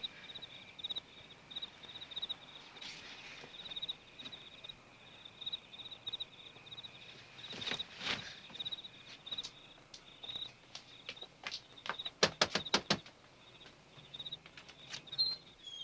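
Night-time crickets chirping steadily in quick pulses. A short whoosh comes about eight seconds in, and a rapid run of sharp taps or knocks a little past twelve seconds.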